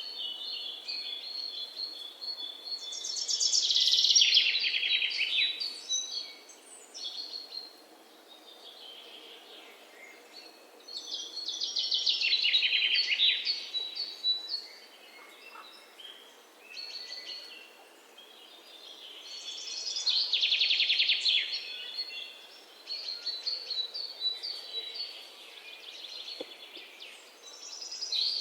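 Birds singing: a loud, rapid trill comes back about every eight seconds, with softer chirps and whistles between.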